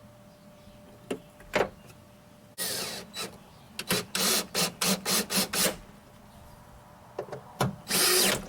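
Power driver running screws in with a series of short trigger pulls: a few brief whirs, then a quick run of about eight half-second bursts, then a longer burst near the end. This is a door latch being screwed back into a door.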